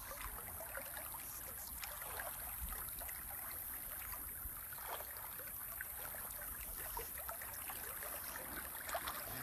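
Steady faint noise of flowing creek water, with a low rumble underneath and a few faint scattered ticks.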